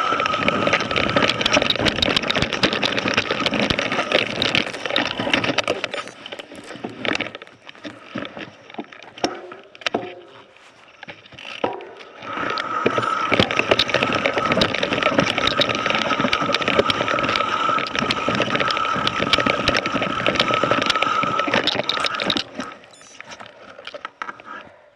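Mountain bike riding down rocky dirt singletrack: the tyres crunch and the bike rattles over rocks and loose dirt, with a steady high whine through the faster stretches. The riding goes quieter for several seconds in the middle and again near the end.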